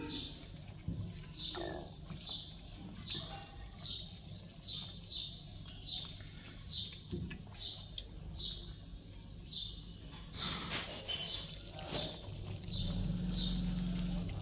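A small bird chirping over and over, short falling high notes about one and a half a second. A low rumble comes in near the end.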